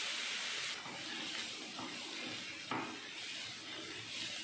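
Grated beetroot sizzling in hot ghee in a frying pan. The hiss drops about a second in, and a spatula stirs and scrapes through the shreds, with a short knock against the pan about two and a half seconds in.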